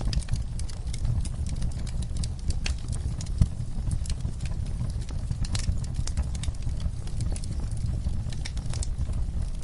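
Wood fire crackling in a fireplace: irregular sharp snaps and pops over a steady low rumble of the flames, with one louder pop about three and a half seconds in.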